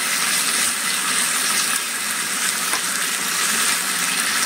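Hot oil sizzling steadily in a small tempering pan with mustard seeds, curry leaves and red chillies frying in it.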